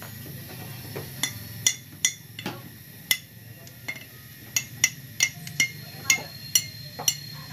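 Sharp metallic clinks and taps of steel hand tools against metal, each with a short ring, coming irregularly and faster in the second half.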